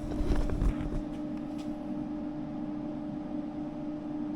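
HVAC unit running with a steady hum. There are a few low handling bumps and clicks in the first second.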